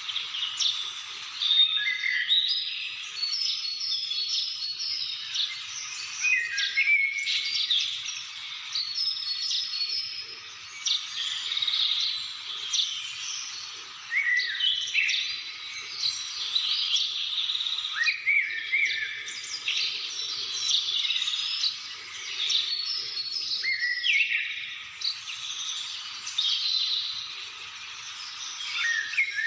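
Many birds chirping and singing at once, a dense chorus of short calls, trills and quick falling whistles that overlap without a break.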